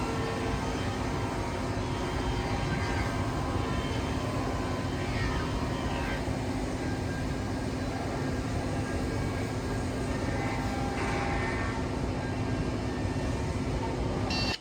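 Holztek HT-1830x2RBS CNC router running: a steady machine noise with a constant hum, and twice a brief higher-pitched swell as it works. The sound cuts off suddenly at the end.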